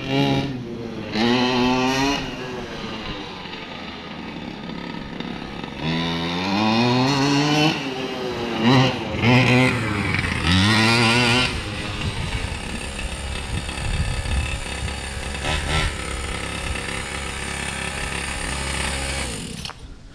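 Two-stroke gas engine of a large-scale RC monster truck revving up several times as it accelerates, then running at a steady speed before falling away near the end. The engine is still finishing its break-in.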